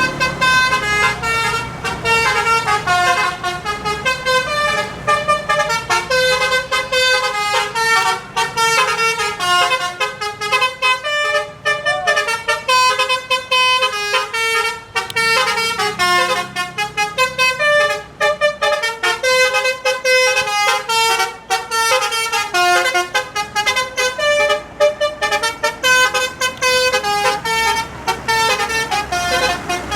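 Multi-tone telolet bus horn playing a fast tune of short notes that step up and down in pitch several times a second, without a break.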